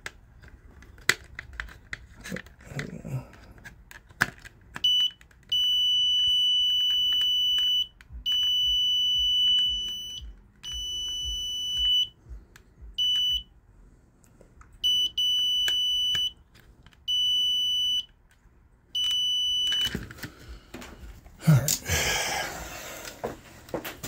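Multimeter continuity beeper sounding a steady high-pitched beep that comes and goes in about eight stretches of up to two seconds as the probes make and lose contact across the thermostat's R and W terminals: continuity with the thermostat calling for heat, the sign the thermostat is good. Near the end there is a short burst of handling rustle.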